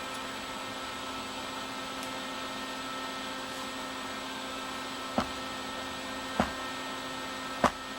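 Steady fan hum with a mains buzz from a flux-core wire-feed welder switched on between welds. Three sharp clicks come a little over a second apart, starting about five seconds in.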